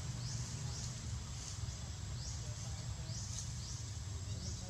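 Outdoor forest ambience: a steady high insect drone with short rising chirps repeating about twice a second, over a constant low rumble.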